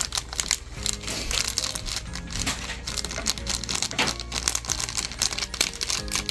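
Plastic packaging crinkling and rustling as it is handled, in a steady irregular crackle.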